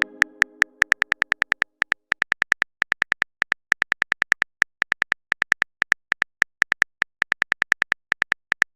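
A rapid run of short, sharp clicks, about seven a second with brief pauses, like a phone keyboard's typing sound effect. Over the first two seconds a pitched chime dies away.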